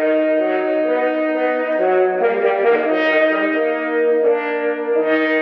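Outro music of slow, held brass chords, as of horns and trombones, shifting to a new chord about every second.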